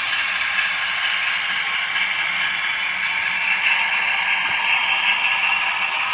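Hornby TTS sound decoder playing a Class 60 diesel locomotive's engine running sound through the model's stock speaker: a steady, hissy engine sound with little bass, swelling slightly past the middle.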